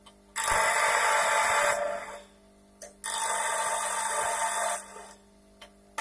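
Bench grinder wheel grinding a steel single-point lathe tool bit held against it by hand. There are two grinding passes of about two seconds each, a loud hiss, over the faint steady hum of the running motor.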